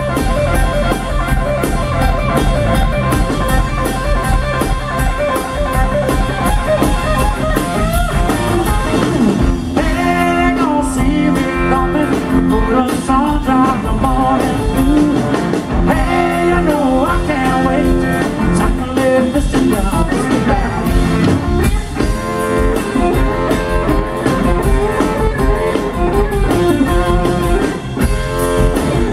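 Live electric blues band playing: electric guitar, bass guitar and drum kit, with a sung vocal line in the middle stretch.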